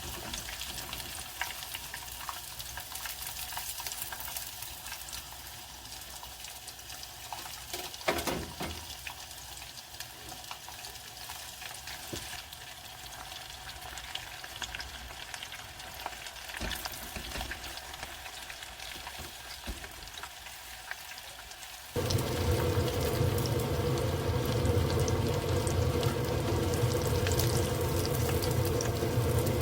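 Breaded chicken cutlets frying in hot oil, a steady crackling sizzle, with a single knock about eight seconds in. About two-thirds of the way through, the sound switches abruptly to something louder and steadier with a low hum underneath.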